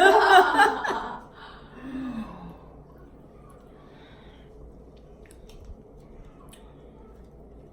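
A person's loud, breathy exhale lasting about a second, then a brief low vocal sound falling in pitch about two seconds in; after that only faint room tone.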